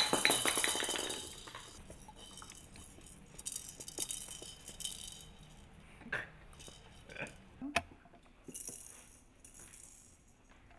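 Plastic maracas rattling as Labrador puppies chew and paw at them: a loud burst of rattling at the start, then softer shakes and scattered clicks.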